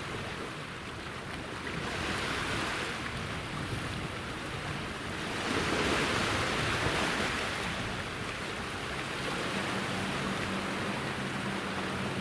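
Small sea waves washing on the shore, swelling twice, most strongly about halfway through. A faint low steady hum joins them near the end.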